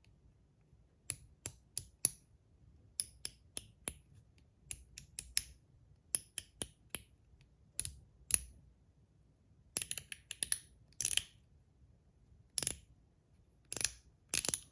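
Zirconium One Pal fidget slider being slid back and forth, its spring-and-ball detents snapping with sharp metallic clicks in quick runs of three or four.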